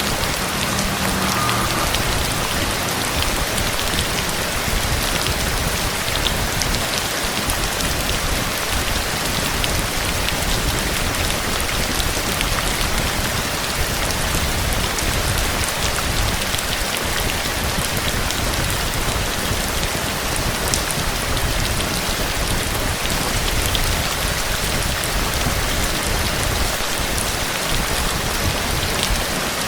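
Steady heavy rain falling, a dense even hiss with many fine drop patters and no break in intensity.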